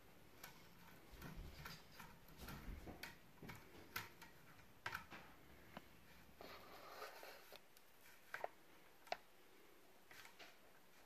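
Faint scraping and irregular sharp clicks as a brass bore brush on a cleaning rod is worked through a .22 calibre air rifle barrel, scrubbing out built-up pellet lead.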